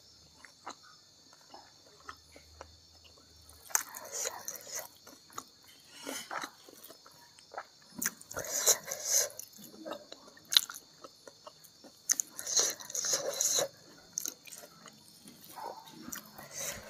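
Close-up chewing and mouth sounds of someone eating rice, greens and salted fish by hand, coming in short clusters every few seconds with small clicks in between.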